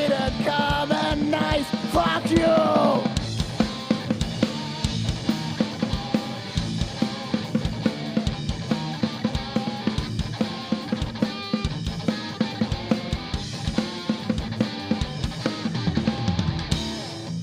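Live rock band playing: a sung line over the band for the first few seconds, then a driving drum-kit beat with kick and snare carries the music on until it stops abruptly at the very end.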